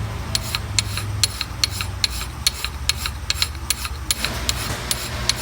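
Hand file scraping a metal clutch helix in quick short strokes, each a sharp scratch, several a second, over a steady low shop hum that drops away about a second in.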